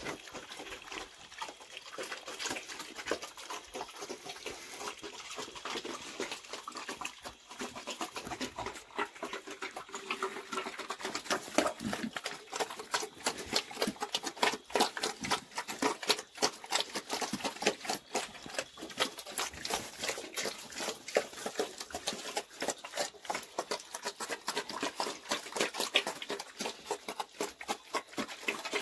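Black piglets feeding, with a dense, irregular run of wet smacking and chewing noises and an occasional grunt.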